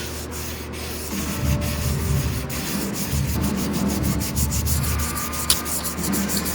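Repeated rubbing strokes, like sanding, in a quick regular rhythm over background music.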